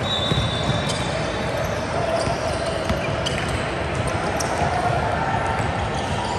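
A basketball bouncing on a hardwood court during play, over the steady noise of a large gym. Short sharp knocks recur, and a brief high squeak sounds in the first second.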